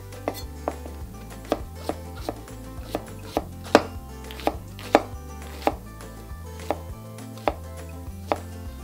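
Kitchen knife chopping shiitake mushroom stems on a cutting board: sharp, irregular knocks of the blade striking the board, about one or two a second.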